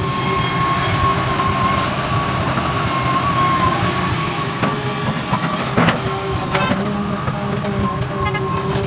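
Hitachi EX300 excavator running, its engine and hydraulics giving a steady drone with a wavering whine, and a couple of short knocks about six seconds in.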